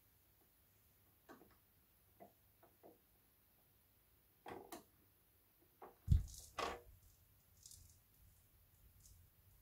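JVC QL-F61 automatic direct-drive turntable cueing itself: faint mechanical clicks as the tonearm lifts and swings out over the record, then a sudden thump about six seconds in and a second one just after as the stylus sets down on the disc, followed by faint crackle from the lead-in groove.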